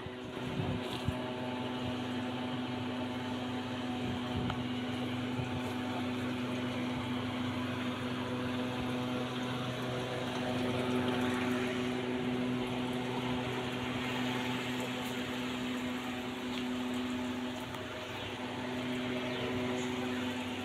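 A motor running with a steady hum of several constant tones, over an even rushing noise.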